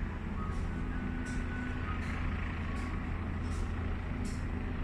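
Steady low engine rumble from a distance, with short faint high hisses about every three-quarters of a second.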